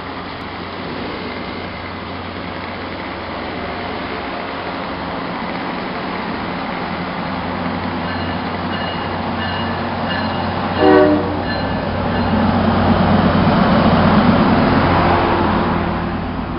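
Metro-North BL20-GH diesel locomotive and its train arriving, the engine's steady hum growing louder. Quick repeated high tones come just before a short horn blast about eleven seconds in, then louder engine and wheel noise as the train passes close by.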